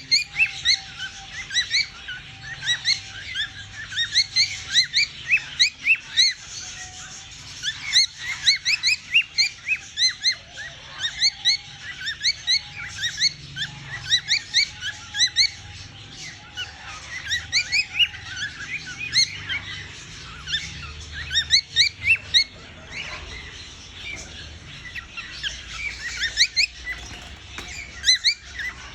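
Bird calls: a faint, steady humming tone, broken off now and then, which the video presents as a cockatiel humming. Over it runs a dense stream of short rising chirps, several a second.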